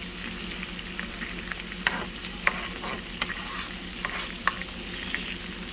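Beef patties and tomato sauce sizzling in a frying pan, steady throughout, while a metal spoon scrapes the sauce around. The spoon taps sharply against the pan a few times.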